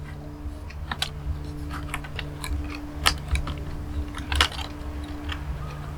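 Light, scattered clicks and taps of small laptop parts being handled and fitted into place inside an open MacBook Pro, over a steady low hum.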